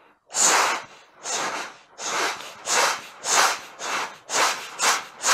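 A man imitating a steam train's chuffing with his mouth: voiceless 'cha-fa' puffs of breath blown through a hand cupped at the lips. There are about ten chuffs, coming faster as they go.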